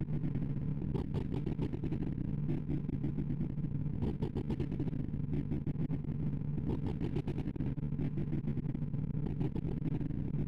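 Synthesized beeps of an array-sorting visualizer running Slow Sort on 64 numbers: a rapid, buzzing stream of low blips whose pitch follows the values being compared, here mostly the small ones.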